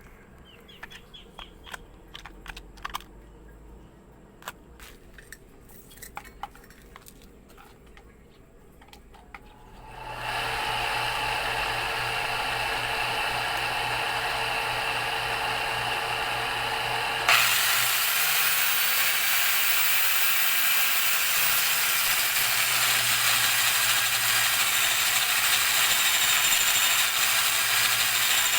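Power tools of an improvised drill-press-and-angle-grinder lathe being tested. After some light clicks from handling, an electric motor starts about ten seconds in and runs steadily. About seven seconds later a louder, harsher whir comes in suddenly and keeps running.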